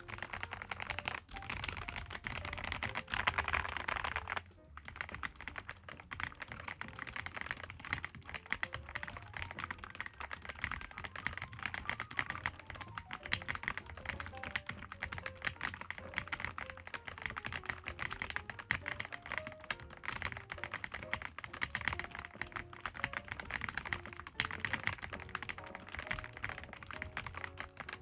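Fast, continuous typing on a Dustsilver D95 mechanical keyboard: a dense stream of key clicks and clacks, with quiet background music.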